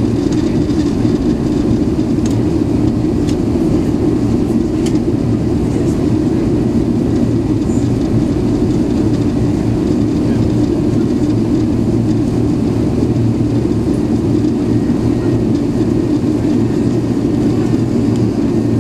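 Steady low drone of an Airbus A380 in flight, heard inside the passenger cabin: engine and airflow noise. A few faint clicks in the first five seconds.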